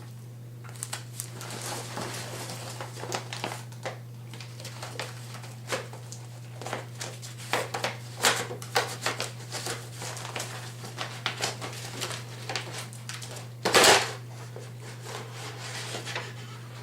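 Hands unwrapping and handling a packed item: irregular rustling and crinkling of packing paper with small clicks and knocks, and one louder rasp near the end. A steady low electrical hum runs underneath.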